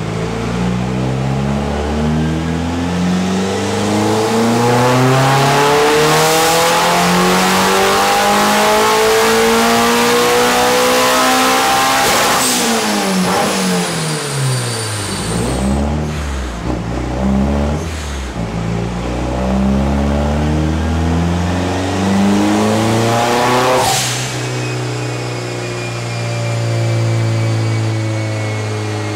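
Mitsubishi Lancer Evolution V's turbocharged four-cylinder engine and exhaust on an all-wheel-drive chassis dyno: the revs climb steadily for about twelve seconds, break off sharply and fall away, then climb again to a second sharp break about 24 seconds in before settling to a steady speed.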